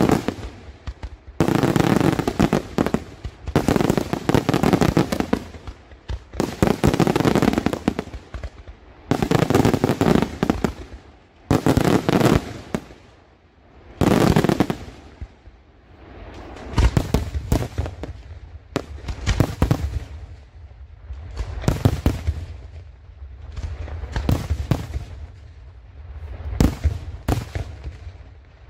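Daytime aerial fireworks shells bursting overhead: dense volleys of rapid bangs, each lasting a second or two with short gaps between. From about halfway they give way to separate sharp bangs with deeper booms.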